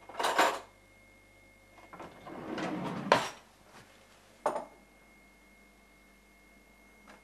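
Handling sounds of an object being picked up and set down: a short sliding scrape, then a longer rustling slide that ends in a sharp clack about three seconds in, and a single sharp knock about four and a half seconds in.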